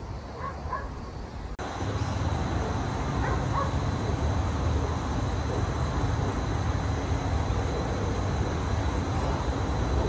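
Garden lawn sprinkler spraying water: a steady hiss over a low rumble, which starts abruptly about a second and a half in. A few short bird chirps sound over it.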